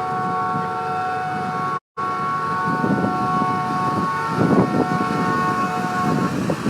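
A vehicle air horn held in one long, steady chord of several notes, with a brief total dropout about two seconds in, stopping shortly before the end, over street and traffic noise that grows louder in the second half.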